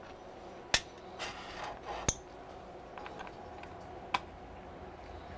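Small metal hand tools clicking and scraping against a laptop's aluminium bottom case: three sharp knocks, with light scraping between the first two.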